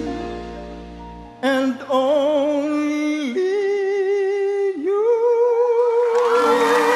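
A man's singing voice carries the final ad-lib of a ballad almost alone after the band's last chord fades: wordless, wavering vocal runs that climb to a long held high note with vibrato. Applause starts to rise under the held note near the end.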